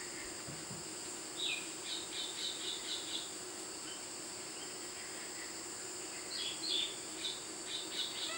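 A small bird calling in two runs of quick, high chirps, about a second and a half in and again near the end, over a steady drone of crickets.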